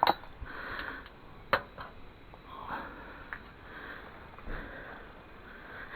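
A person sniffing and breathing close to the microphone, in short soft puffs about once a second, with two sharp clicks: one right at the start and one about a second and a half in.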